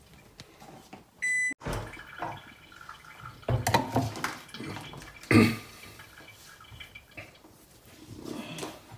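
Kitchen handling noises: a short electronic beep about a second in, then scattered knocks and clatters, the loudest about five seconds in.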